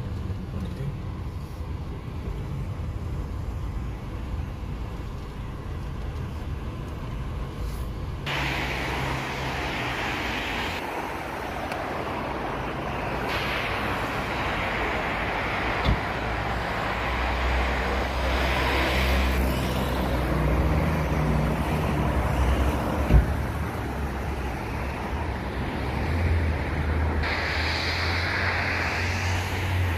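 Road noise inside a moving car's cabin, then, after a cut about eight seconds in, street traffic: passing cars and engine hum, with two sharp knocks later on.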